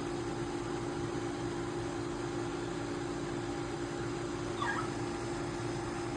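BLACK+DECKER BPACT10WT portable air conditioner running steadily at its coldest setting, a constant hum with a low held tone over a fan's rush. About two-thirds of the way through, a short high chirp sounds once.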